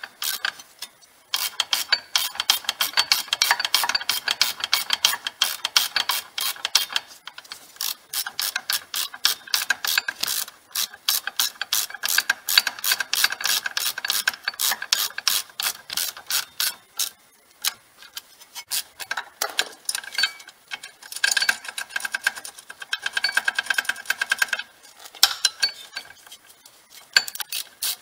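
Ratchet wrench clicking rapidly in long runs with brief pauses, as the 18 mm bolts holding the brake caliper carrier are run in.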